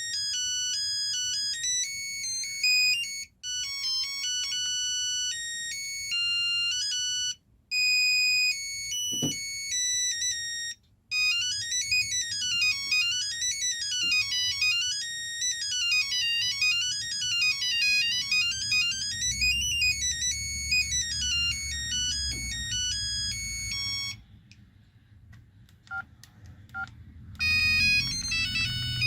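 LG V111 mobile phone's built-in ringtones played one after another: short, high electronic melodies, each cut off after a few seconds by the next. One runs as fast rising-and-falling arpeggios. Near the end there is a brief pause with a few faint clicks before another tone starts.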